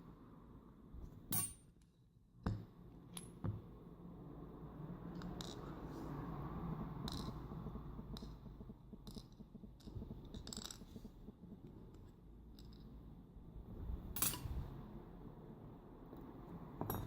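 Faint, scattered clicks and clinks of small metal lock pins and tools being handled as a pin-tumbler lock cylinder is taken apart, with a soft rustle of handling in between.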